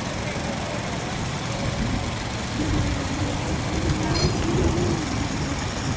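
Engines of wooden fishing boats running steadily at low revs as the boats berth, with indistinct voices of people around the harbour rising in the middle.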